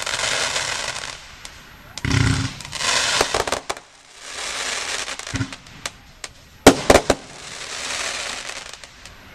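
Category F2 consumer fireworks going off: a run of shots and bangs, with a second or so of dense hiss as each effect bursts, and a cluster of sharp cracks about seven seconds in, the loudest of the stretch.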